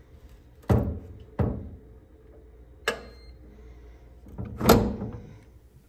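Knocks and clunks from a steel rifle safe's door and lock: four separate sharp knocks about a second apart, the third followed by a brief high tone, and the last a longer clattering clunk.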